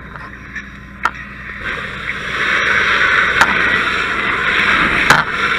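A fire hose stream spraying water, a steady rushing hiss that builds about two seconds in, with three sharp knocks, the last the loudest.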